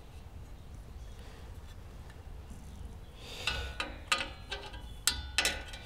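Felt-tip marker squeaking in short strokes on sheet-aluminum trim, in two clusters starting about three seconds in; before that only a faint low hum.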